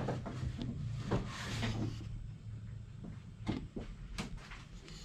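Scattered light knocks and clicks of things being handled, with a brief rustling rush about a second in and a low steady hum that fades out a little past halfway.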